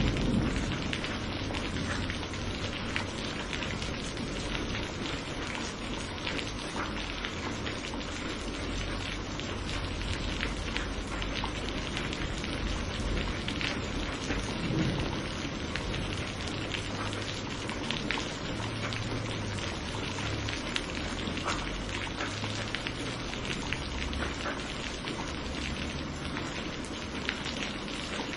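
Steady heavy rain, a dense continuous patter of drops on surfaces, with a low thunder rumble dying away in the first second and faint low rumbles later on.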